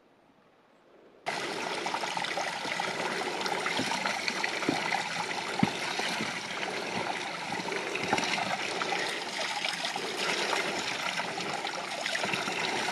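A thin stream of spring water falling from a rock and trickling over stones, starting suddenly about a second in and then running steadily, with a few brief knocks.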